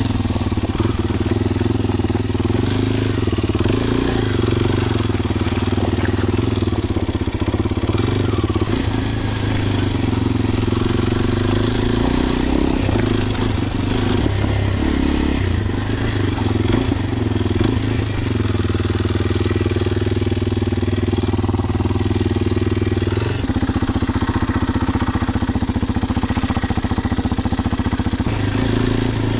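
Kawasaki KLX230SM's air-cooled single-cylinder four-stroke engine running through a Delta Barrel4-S aftermarket muffler as the bike rides over loose gravel. The engine note rises and falls with the throttle over a steady hiss of tyre and wind noise, and about 23 seconds in it settles to a steadier, even beat.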